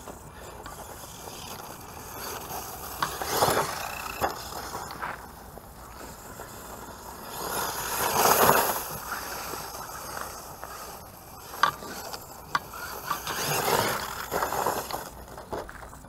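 Redcat Terremoto 10 brushless 4x4 RC monster truck on a 3S battery driving over dry straw and dirt. It swells three times as it runs close, loudest about halfway through, with a few sharp clicks and knocks along the way.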